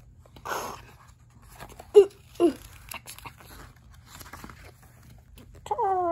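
Pages of a hardcover book rustling and being flipped. Two brief vocal sounds come about two seconds in, and a longer drawn-out one near the end.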